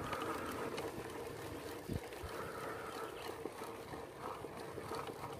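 Mountain bike climbing a paved road, picked up by a camera on its handlebars: a steady rumble of tyres and drivetrain with a few small rattles and clicks.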